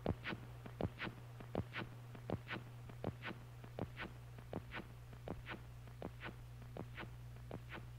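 Experimental noise music: a steady low electronic hum under sharp clicks that come in pairs, about one pair every three-quarters of a second, in an even pulse like a heartbeat.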